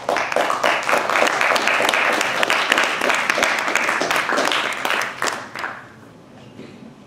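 Audience applauding with dense, many-handed clapping that starts at once and dies away about five and a half seconds in, ending in a few stray claps.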